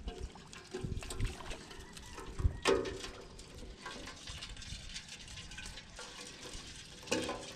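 Water trickling and splashing as a wet bamboo fish trap is shaken out over a plastic basin of fish, with scattered clicks and a louder knock about two and a half seconds in.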